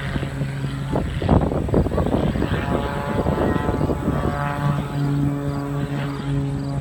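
Propeller engine of a smoke-trailing aerobatic plane droning steadily. About a second in, a rough burst of noise briefly covers it, then the engine note comes back, rich and even.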